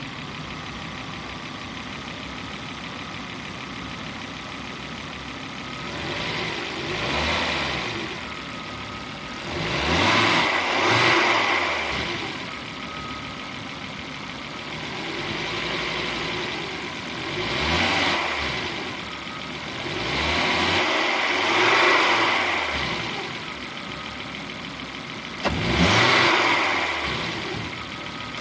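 Volvo S80's 2.4-litre 20-valve inline-five (B5244S) idling steadily, then revved about six times in short rises that fall back to idle, the last one sharper. The engine has about 236,000 km on it and is described as being in excellent condition.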